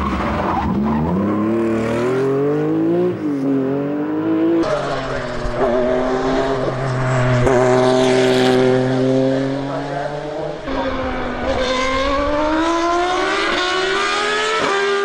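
Race car engines in three clips, one after another. First a Porsche 911 rally car's flat-six revving up and down through gear changes. About four and a half seconds in, a Porsche 962 Group C car's turbocharged flat-six holds a high, nearly steady note. About eleven seconds in, a Williams Formula 1 car's Renault V10 comes in with a rising scream.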